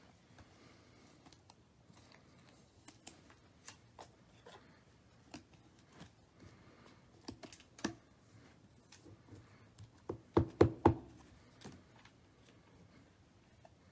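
Panini Prizm basketball cards being handled and set down on a tabletop: scattered light clicks and taps, with a quick run of louder knocks about ten seconds in.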